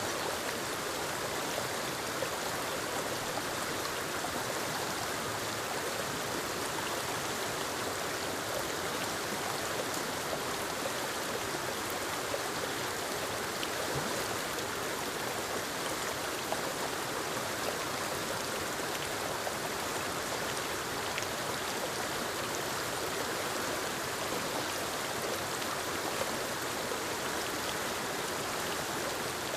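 A small forest waterfall splashing over rocks into a stream: a steady, even rush of falling water with no pauses or changes.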